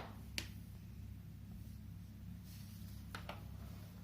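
A few short plastic clicks and taps as steam mop parts are handled and fitted together: one shortly after the start and two close together about three seconds in, over a steady low hum.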